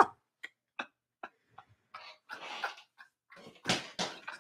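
A man laughing breathlessly: a string of short wheezing gasps, a breathy stretch, then a couple of louder laughing bursts near the end.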